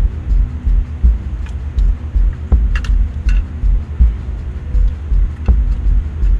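A loud low rumbling throb that pulses irregularly a couple of times a second. Over it come a few light metallic clicks and clinks from hand tools and parts being handled in an engine bay, the busiest cluster about three seconds in.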